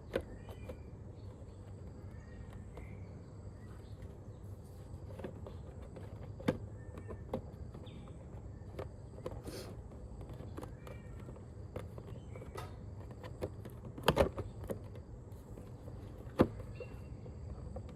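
Sporadic light clicks and taps, the loudest about fourteen seconds in, from windshield parts and small screws and washers being handled. They sit over a low steady hum, with faint short chirps now and then.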